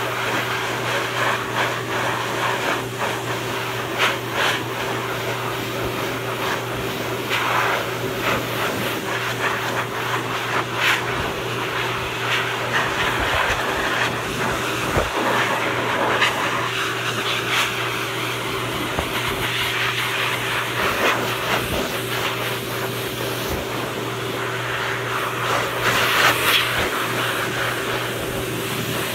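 Dog grooming blow dryer running steadily: a constant motor hum under a rushing hiss of air that swells now and then.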